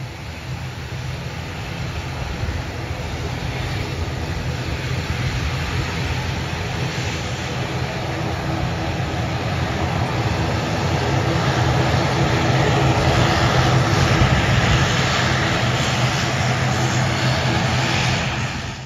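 Twin turboprop engines of an ATR 72 running as the aircraft taxis, giving a steady low propeller drone under a broad hiss. It grows louder over the first fourteen seconds or so, holds, then cuts off suddenly at the end.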